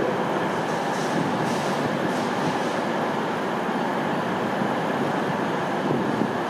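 Northern Class 150 Sprinter diesel multiple unit running slowly into the station: a steady rumble of the train and its wheels on the track.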